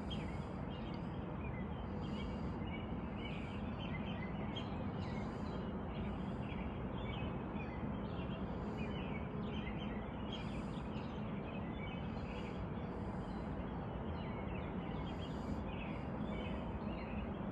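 Birds chirping, with short high calls repeating every second or two over a steady outdoor background hiss.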